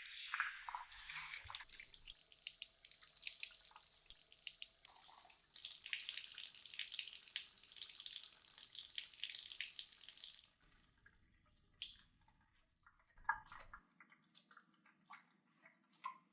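Tap water running into a sink as a Dyson vacuum filter is rinsed under it. The water stops abruptly about two-thirds of the way through, leaving scattered light knocks and drips.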